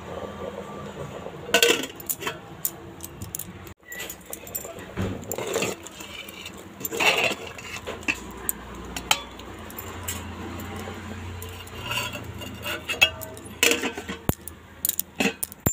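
Aluminium cooking pot and a metal plate lid clinking and scraping as they are handled, in irregular sharp clinks; a cluster of clinks near the end as the plate is set on the pot as a lid.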